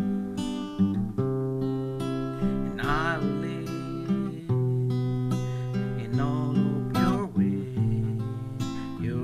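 Acoustic guitar strumming chords, each left to ring before the next strum. A voice briefly holds a wordless sung note about three seconds in and again around seven seconds.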